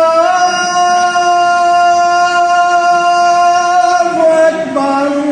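A male muezzin chanting the adhan, the Islamic call to prayer. He holds one long, steady melismatic note, then drops in pitch to a lower held note near the end.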